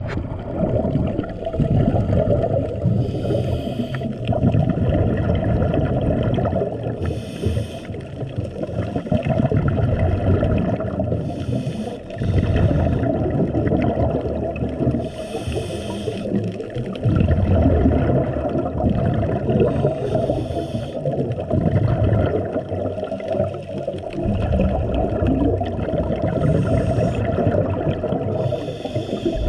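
Underwater sound of a scuba diver breathing: a steady low rumble of water, broken every few seconds by a hissing gurgle of bubbles from the regulator's exhaust.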